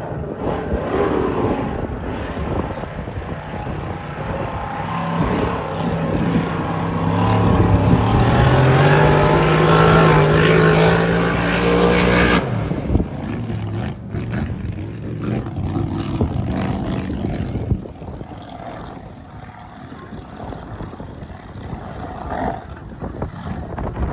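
Race boat engine running hard and rising steadily in pitch as the boat accelerates, loudest about ten seconds in. It cuts off abruptly about halfway through, leaving quieter, rougher engine and wind noise.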